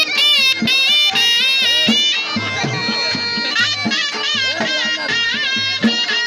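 Saraiki jhumar folk music: a reedy wind instrument plays a bending, ornamented melody over a steady drum beat.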